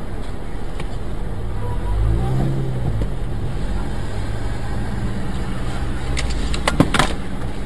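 Steady low rumble of engines in stopped city traffic, recorded by a dashcam. About two seconds in, an engine revs up and settles as a vehicle pulls away. Near the end, a few sharp clicks come in quick succession.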